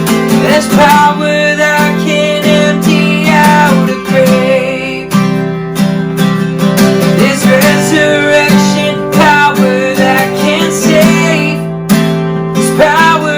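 Worship band music led by a strummed acoustic guitar, with a voice singing over it.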